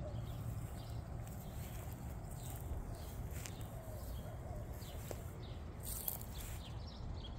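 Faint, scattered small bird chirps over a low, steady rumble.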